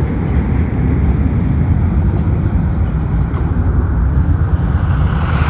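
Jet airliner's engines at takeoff thrust as it climbs away: a steady, loud, low rumble.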